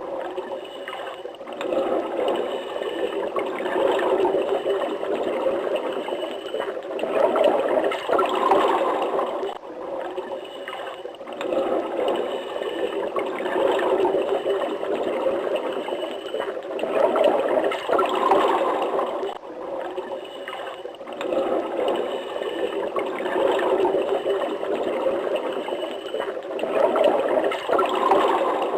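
Water running and gurgling like a small stream, a steady splashing that swells and eases. The same stretch repeats about every nine and a half seconds, as a looped sound effect.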